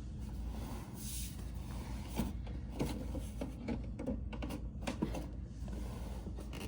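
Mechanical clicks and clunks from a Sony SLV-N77 VHS VCR being operated, a quick run of them in the middle, over a steady low hum.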